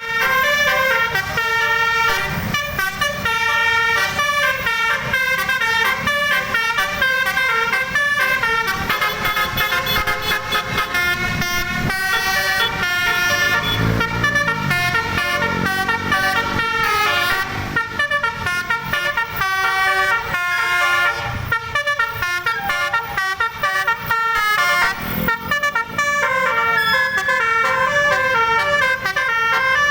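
Basuri telolet multi-tone bus horn playing a fast melody, its notes stepping quickly up and down without a break. About halfway through, a lower sound swells and fades under it.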